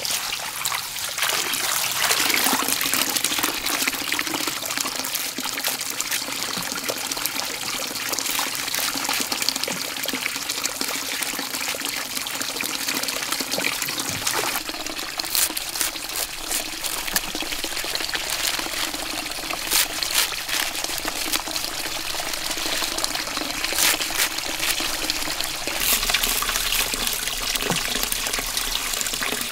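Water pouring and trickling steadily, with many small splashes.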